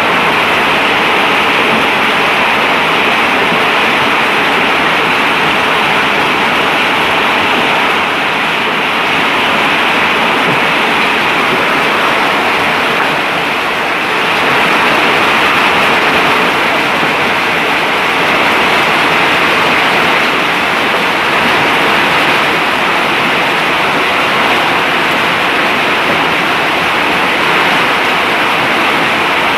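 Hailstorm: hail and heavy rain falling, a loud, steady, dense noise, dipping briefly about halfway through.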